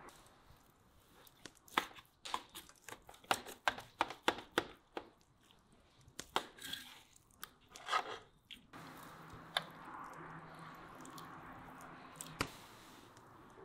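Knife and fork cutting through the crust of a roasted beef rib on a metal roasting tray: a rapid run of sharp clicks and crunches for several seconds. Then a quieter steady background with a low hum and two single clicks.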